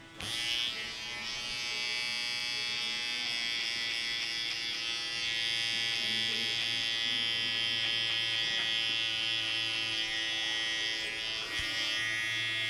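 Electric hair clipper switched on suddenly and buzzing steadily.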